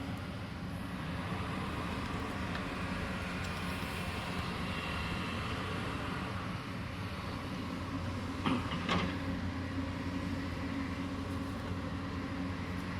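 Excavator diesel engine running steadily. About eight and a half seconds in come two short, sharp knocks close together.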